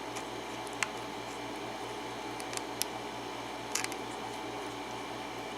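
A handful of faint, sharp ticks from a lock pick working the pins of a 5-pin Faultless pin-tumbler lock under light tension, over a steady background hum.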